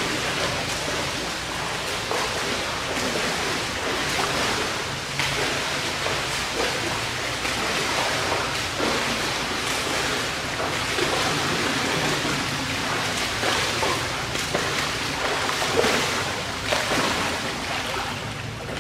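Water splashing and churning from a swimmer's strokes in a pool, growing closer, over a steady low hum.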